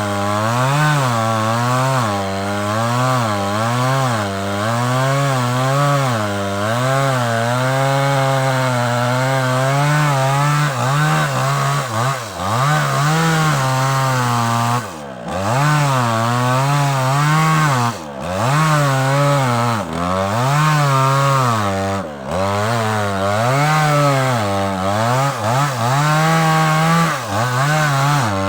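Small petrol chainsaw cutting sengon wood, its engine speed rising and falling about once a second as it works through the cut. Several times, mostly in the second half, the speed dips sharply and then climbs back.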